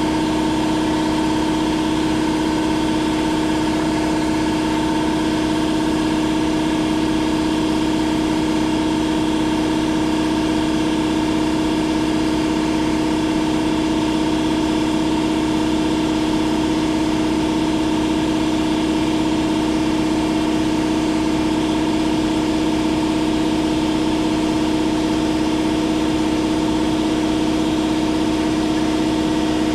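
Power drill running at a steady speed with a constant whine, as a Rescue Bit drills out a cobalt drill bit broken off in a grade 8 bolt.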